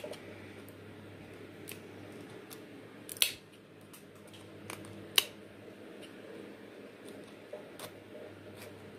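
Scissors snipping the plastic bottom of a black orchid net pot to cut its openings larger: a few separate sharp snips a second or two apart, the loudest about three seconds in.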